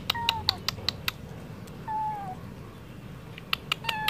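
Stray tabby kitten giving three short mews that fall slightly in pitch, over runs of quick sharp clicks about five a second.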